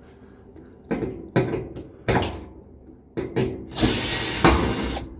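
Several knocks and clatters of a tool and metal parts being handled, then a power drill running for about a second near the end, backing out one of the dryer's small screws.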